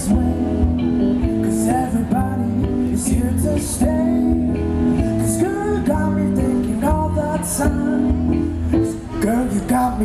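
Live amplified music: electric guitar and keyboard playing a slow jazz song.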